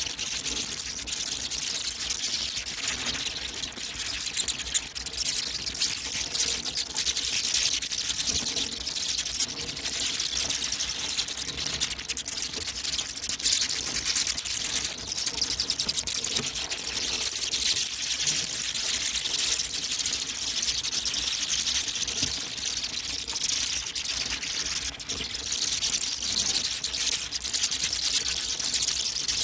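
Many bats squeaking and chittering at once, a dense, steady, high-pitched chatter of overlapping calls with no pauses.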